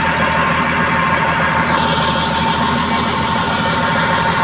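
Caterpillar D6R bulldozer's diesel engine running steadily.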